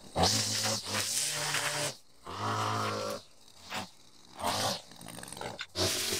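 Maruyama string trimmer revving in short bursts with quiet gaps between, about five bursts of varying length, as the throttle is squeezed and let off while cutting grass.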